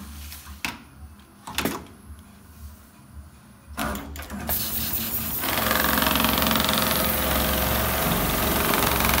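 Dürkopp Adler 911 CNC-controlled lockstitch large-area sewing unit: a few sharp knocks as the clamping template is set in place, then a loud knock and a short burst of noise about four seconds in as the machine takes the template. From about five and a half seconds it is sewing, running steadily at speed.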